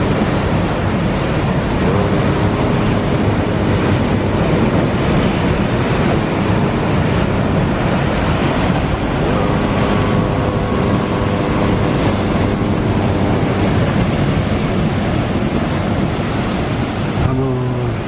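Sea waves breaking on a rocky shore: a steady, loud wash of surf and churning foam.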